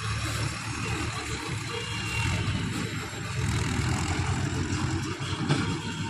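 Tractor diesel engines running steadily as they pull round balers.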